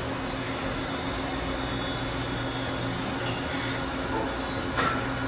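Steady mechanical hum from running machinery, with a couple of light knocks, the clearer one near the end.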